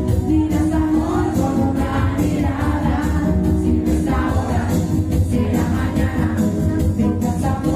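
1980s pop song playing, a singing voice over a steady beat with heavy bass.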